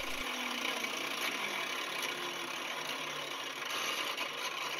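Angle grinder mounted under a table saw, its cut-off disc spinning down after being switched off; the whine falls slowly in pitch.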